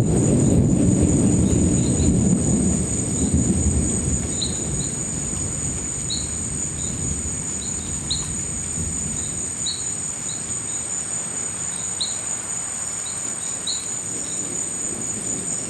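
Low thunder rumble dying away over the first few seconds, under a steady high-pitched trilling of crickets that runs throughout. Short high chirps sound here and there, about one or two a second.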